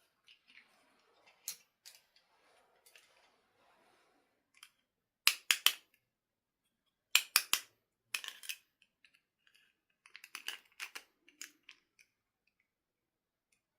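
Sharp clicks and snips from toy packaging or plastic doll parts being handled, with soft rustling at first. The clicks come in quick groups of about three.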